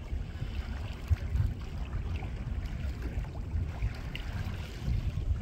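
Wind buffeting the microphone in an uneven low rumble out on open water, with faint splashing of water around a boat.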